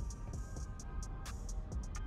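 Quiet background music with held notes and a few light ticking beats.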